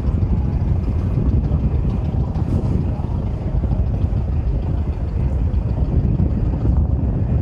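Steady low rumble of wind buffeting the microphone, mixed with the distant drone of a vintage biplane's engine throttled back on landing approach.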